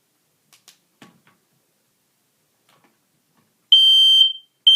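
A few faint clicks, then near the end a Kidde 0918 battery smoke alarm's horn, set off for a demonstration, sounds one loud, high-pitched beep of about half a second, and a second beep begins just as the first has ended.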